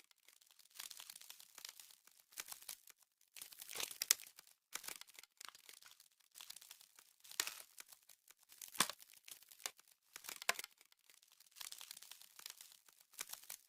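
Frost-spreading sound effect: icy crackling and crinkling that comes in surges every second or so, with a few sharper cracks.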